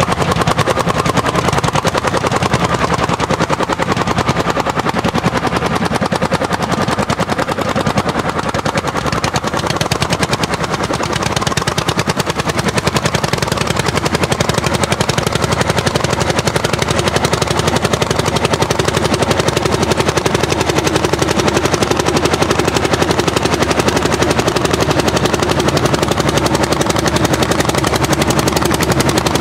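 Orsi Argo hot-bulb tractor's single-cylinder two-stroke engine working at full throttle under plough load, its exhaust firing in a fast, even stream of loud pops.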